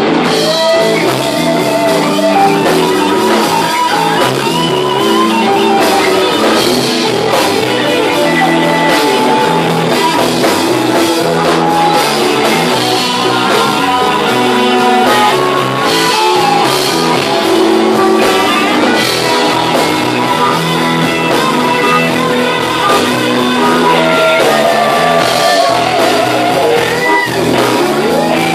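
Live blues band playing at full volume: Stratocaster and Les Paul electric guitars, bass and drum kit, with the frontman playing harmonica into the vocal microphone.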